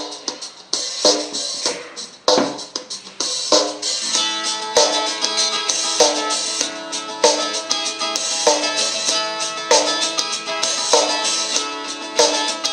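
A pop song with drums and guitar played back through a small Xiaomi Mi portable Bluetooth speaker at the phone's full volume, with a steady beat and very little deep bass. The reviewer finds the sound somewhat harsh at full volume.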